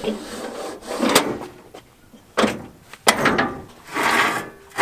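A series of separate knocks and bangs with short scraping between them, from a dirt bike being handled down off a truck.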